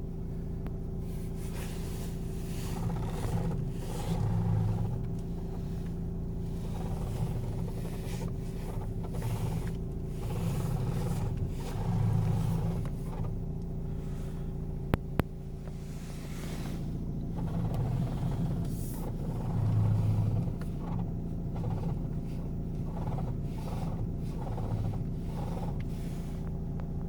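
Nissan Qashqai 1.5 dCi four-cylinder diesel idling steadily, with a creaking groan from the front suspension that comes back every few seconds as the steering is turned one way and then the other. The creak came from deformed front strut-top rubbers rubbing on the strut bearing's outer race. A single sharp click about halfway through.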